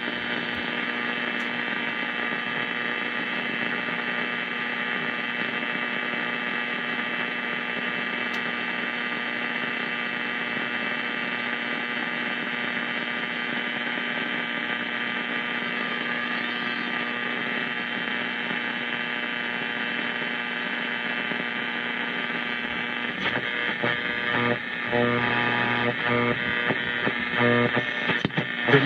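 Old valve radio giving off a steady electrical hum and static, thin and boxy like a small old speaker. Near the end the hum breaks up and fragments of a broadcast start to come through.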